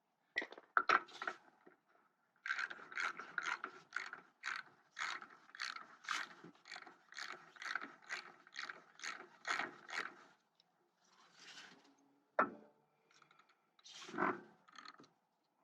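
A hand socket ratchet clicks in a quick, even run of strokes, about three a second, for several seconds. Before it come a couple of sharp knocks, and after it a few scattered single clicks and knocks.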